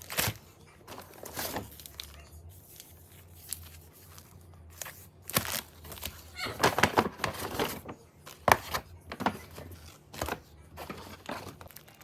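Delivery food packaging rustling and crinkling in irregular bursts, loudest partway through, as a takeout order is handled and unpacked.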